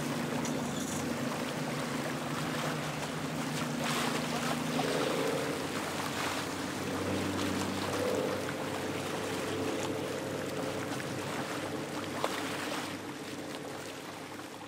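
Boat engines running as a steady low hum whose pitch shifts a few times, over a steady rush of wind and water; the sound drops away near the end.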